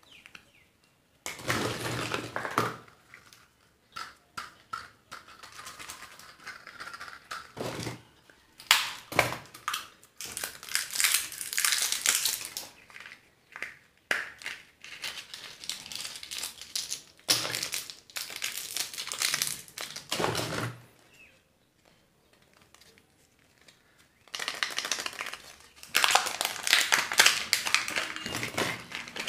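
Crinkly wrappers of surprise eggs and candies being handled and unwrapped, in repeated bursts of crackling with short quiet pauses between.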